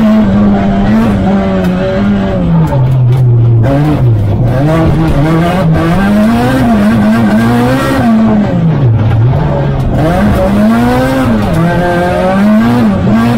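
Renault Clio R3 Max rally car's engine at full stage pace, heard from inside the cabin. The revs climb and fall again and again as the car accelerates, brakes and changes gear, with deep drops about four and nine seconds in.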